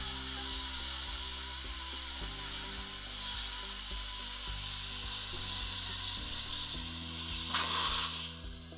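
Air-driven slow-speed dental handpiece running with a steady hiss as its silicone brush tip polishes a composite filling, under background music. A short, louder spray burst comes about seven and a half seconds in.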